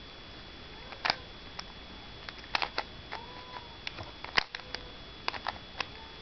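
Rubik's Cube layers being turned by hand: irregular plastic clicks and snaps as the faces rotate, some in quick runs.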